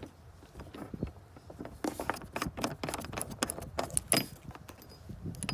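Yellow plastic cap being pulled and flipped off the cooling-system flush fitting on a jet ski, a quick run of small plastic clicks and taps against the metal hose threads, with one sharper click about four seconds in.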